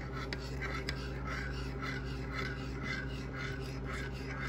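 Metal spoon stirring sugar into coffee in a mug, scraping around the inside in a steady rasp about three times a second, with a few light clinks against the side.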